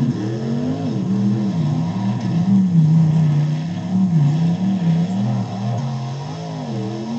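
Dodge monster truck's engine revving up and down over and over on the course, its pitch rising and falling roughly once a second.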